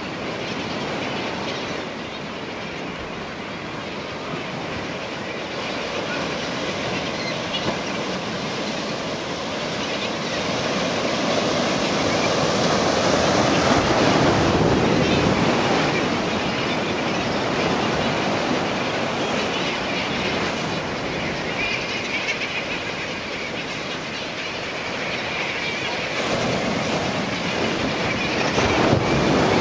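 Continuous rushing, clattering noise of a seabird feeding frenzy: a mass of brown pelicans and other seabirds plunge-diving and splashing on a school of anchovies, over waves washing on rocks. It swells louder about halfway through and again near the end.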